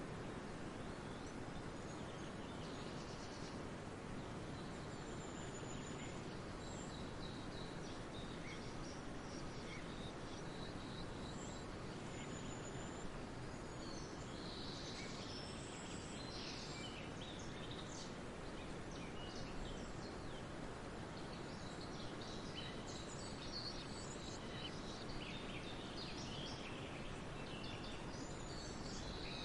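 Outdoor nature ambience: a steady background hiss with scattered short, high bird chirps, which come more often in the second half.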